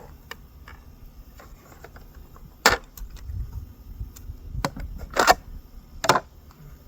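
Sharp plastic clicks and snaps as a zip tie is cut and pulled off a chainsaw and the chain is handled: four louder snaps, the loudest about five seconds in, among smaller ticks.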